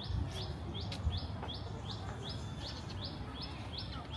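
A bird calling a rapid, evenly spaced series of high chirps, about three a second, over a low rumble of background noise.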